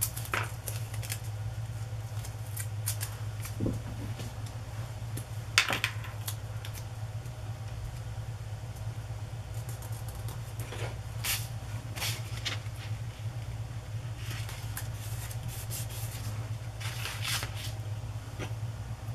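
Washi tape and paper being handled on a cutting mat: scattered short rustles, scrapes and light taps as tape is pulled from its roll and pressed onto a paper journal page. A steady low hum runs underneath.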